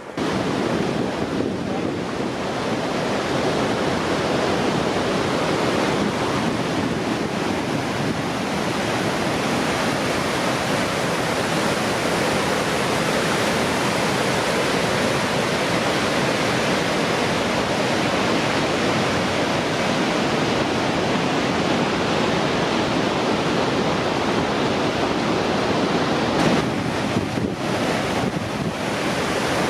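The Upper Falls of the Yellowstone River: a steady, loud rush of falling water.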